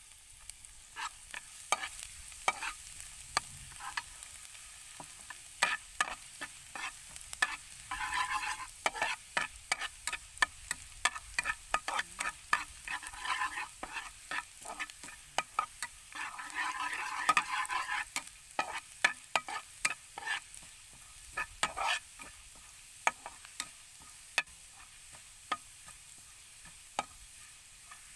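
Minced garlic sizzling in hot oil in a frying pan, stirred with a metal spatula that scrapes and taps against the pan many times. The sizzle swells twice, about a third of the way in and again past the middle.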